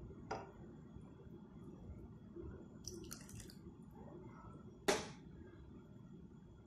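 Silicone spatula stirring thick custard in a saucepan, with a few light knocks and scrapes against the pot; the sharpest knock comes a little before five seconds in, over a faint steady low rumble.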